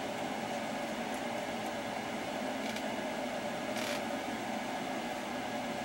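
Steady fan hum and hiss, with a light click nearly four seconds in.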